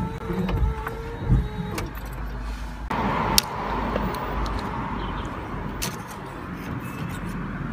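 Car windshield wipers running. A steady motor whine comes first; from about three seconds in there is a steady scraping noise of the blades across the glass, with scattered clicks. This is the loud wiper noise that is blamed on dirt on the blades.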